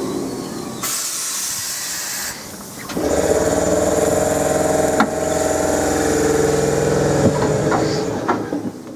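Class 313 electric train standing at a platform: a burst of air hiss about a second in, then from about three seconds a steady mechanical hum, with a sharp click about five seconds in as the door-open button is pressed.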